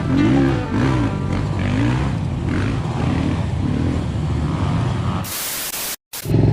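Off-road motorcycle engine revved up and down over and over, its pitch rising and falling about once or twice a second. Near the end comes a loud burst of hiss, then a moment's drop-out.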